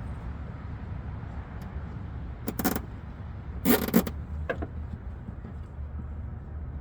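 Hands fitting small clips onto car parts: two loud, short clattering scrapes about two and a half and four seconds in, and a smaller click just after, over a steady low rumble.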